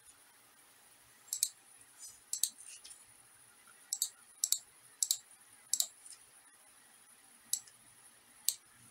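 Computer mouse buttons clicking: about eight sharp, short clicks at irregular intervals, some in quick pairs.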